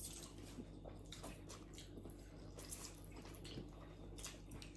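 Faint wet eating sounds: a scattering of small clicks and squishes from chewing and slurping spicy noodles and momo.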